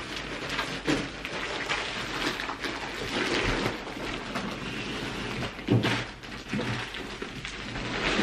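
Plastic wrapping on a rolled foam mattress crinkling and rustling as it is unrolled and pulled across the bed, with irregular crackles and a few louder snaps of plastic.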